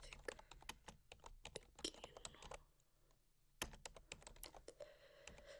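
Fast typing on a computer keyboard: a faint, quick run of key clicks, a pause of about a second near the middle, then another run of clicks.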